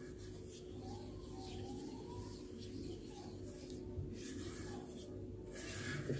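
Faint soft scraping of a silicone spatula stirring flour into grape molasses in a coated saucepan, over a steady low hum.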